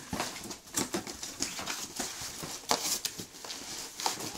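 Plastic wrapping crinkling and a cardboard shipping box being handled, with irregular rustles and clicks, as packed items are pulled out of the box.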